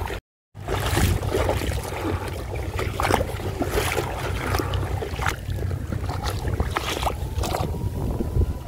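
Wading steps through shallow seawater in rubber boots, splashing irregularly, over a steady rumble of wind on the microphone. The sound cuts out briefly just after the start.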